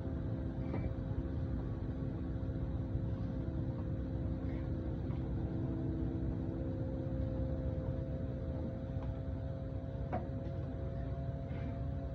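Boat engine running at a steady speed, a low drone with a constant hum.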